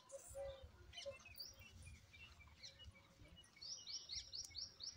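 Faint birdsong: scattered short chirps, then near the end a quick run of about six rising high notes, over a low rumble of background noise.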